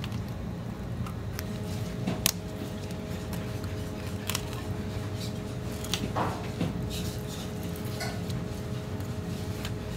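Knife filleting a sea bream on a plastic cutting board: scattered light clicks and scrapes of the blade against bone and board, the sharpest about two seconds in, over a steady kitchen hum with a faint held tone.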